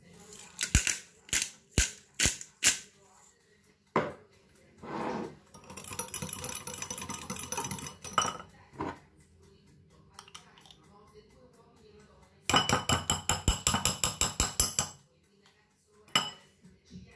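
A pepper grinder turned over a glass bowl in a few short, sharp crunches, then a wire whisk beating dressing in the glass bowl: two spells of fast, rhythmic clinking of wire against glass.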